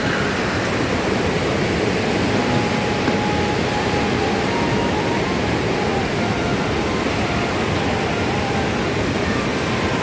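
Steady rushing of a river running high and muddy with rain from upstream, an even unbroken noise.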